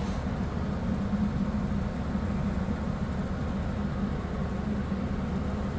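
Furnace blower motor and blower wheel running with a steady low hum.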